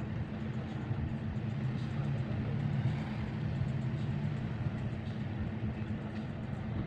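An engine idling: a low, even drone.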